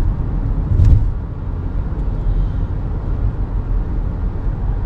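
Car cabin road noise: a steady low rumble from inside a riding car, with one short thump a little under a second in.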